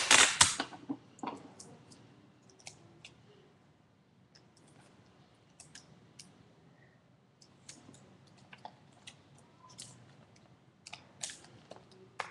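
Adhesive tape and paper being handled. It opens with the tail of a loud, noisy rasp, then gives scattered light clicks and crinkles, with a louder flurry near the end.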